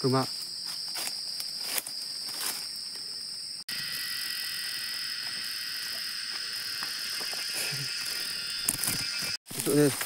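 Cicadas buzzing in a steady, high-pitched drone. About four seconds in it turns louder and fuller.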